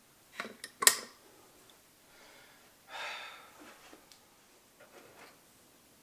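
A few sharp clicks in quick succession about a second in, then a short breath-like exhale about three seconds in, with faint small ticks after it.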